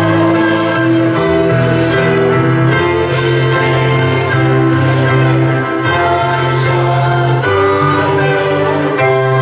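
Church choir singing in parts with instrumental accompaniment, holding long sustained chords that shift every second or so.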